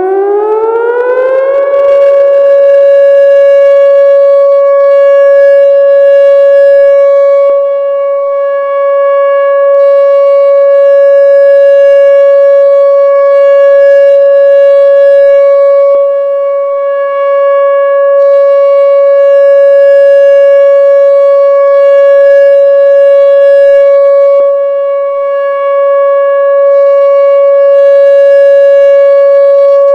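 Whelen electronic warning siren sounding its steady Alert tone: the pitch winds up over the first couple of seconds, then holds one loud, steady wail. The volume dips slightly about every eight seconds.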